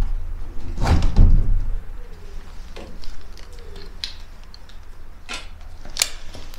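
Handling noise from an old cloth wall map being pulled free: a loud rustling thump about a second in, then scattered sharp clicks and knocks.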